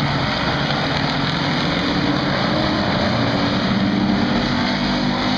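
Several street stock race cars running at speed around the oval, a steady loud engine din whose pitch wavers as the cars go by.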